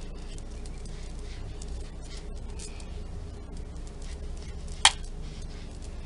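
Faint scratchy brushing of a powder makeup brush over the face and compact, with small handling clicks and one sharp click about five seconds in, over a steady low hum.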